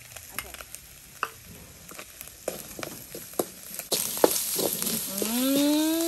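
Minced frog meat and chili paste frying in oil in a metal pan, a metal spoon scraping and clicking against the pan as it stirs. The sizzle gets much louder about four seconds in. Near the end a long call rises and then falls in pitch.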